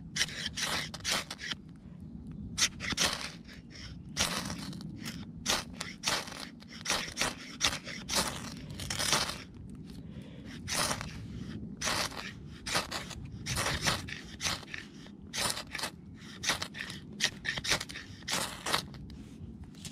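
Knife blade scraped hard down a ferrocerium rod, stroke after stroke, each a short sharp rasp, about two a second with brief pauses: striking sparks onto fine wood shavings that have not yet caught.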